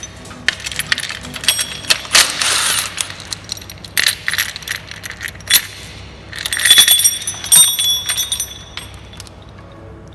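Metal tools and parts clinking and clattering in irregular bursts, with sharp ringing knocks, over faint background music.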